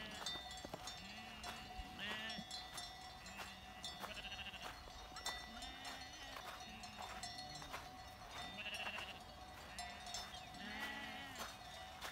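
A flock of sheep bleating over and over, with many calls overlapping: some low, some high-pitched, each lasting under a second. A faint steady tone runs underneath.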